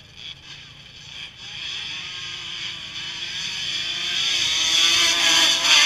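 ATV engines at full throttle in a drag race, growing steadily louder as they come down the strip and pass close by near the end, then dropping away suddenly.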